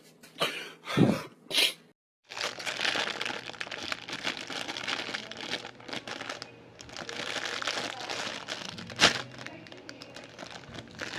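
Plastic packaging crinkling and tearing as it is handled and opened. There are a few short rustles, then nearly continuous crackling with one sharp snap near the end.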